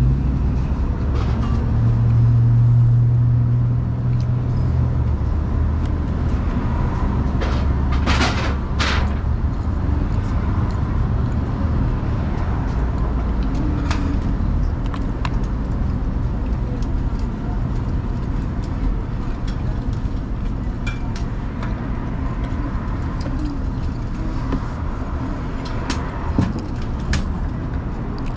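Steady low rumble of road traffic, with an engine hum swelling about two seconds in and fading a couple of seconds later. Two sharp clicks sound about eight seconds in.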